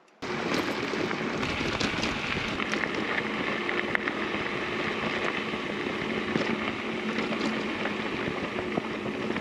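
Steady wind rushing over the microphone, starting abruptly a moment in, with a faint low hum underneath.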